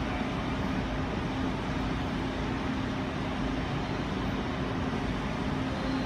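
A steady mechanical hum and hiss, like shop ventilation or a running machine, with one constant low tone through it.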